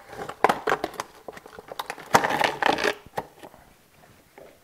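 A new saw chain being unpacked and handled: a run of light clicks and rattles from the links, with a denser burst of clicking and rustling about two seconds in.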